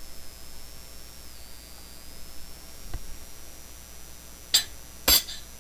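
Steel pieces set down on a steel workbench: two sharp metallic clicks about half a second apart near the end, with a fainter one earlier, over a faint steady hiss and a thin high whine.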